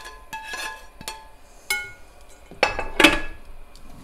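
Metal tongs scraping and clinking against a metal frying pan and a glass bowl as guanciale is scraped from the pan into the pasta. Several short ringing clinks, with a louder clatter about three seconds in.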